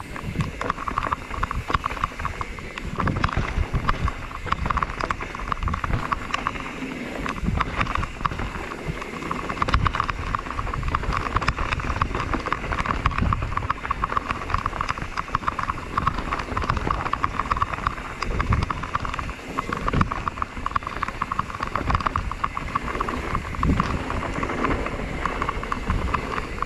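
Mountain bike ridden fast down a dirt trail, its chain, frame and wheels rattling and clicking steadily over the bumps, with irregular low thumps from the rough ground and wind on the microphone.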